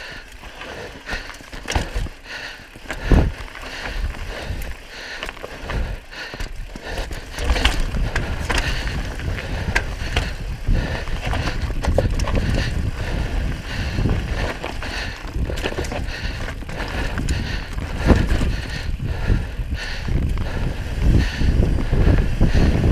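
Mountain bike descending rocky dirt singletrack: tyres rolling over dirt and loose rock, with frequent sharp knocks and rattles as the bike hits rocks and drops, the loudest a few seconds in. Wind rumble on the camera microphone builds as the speed picks up toward the end.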